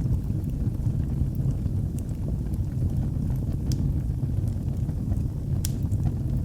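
Wood fire in a fireplace burning with a steady low rumble and scattered sharp crackles, one louder pop near the end.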